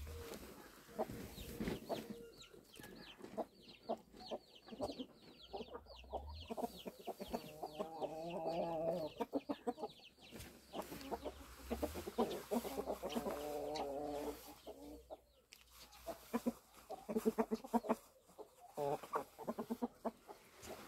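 Chickens clucking, with two long wavering calls of two to three seconds each in the middle and a run of short, quick clucks near the end.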